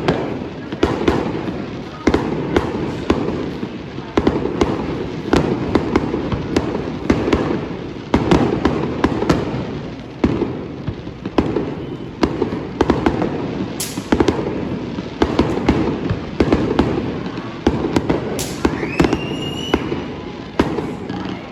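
Fireworks display: a dense run of bangs and crackling bursts, with a rising whistle from a shell near the end.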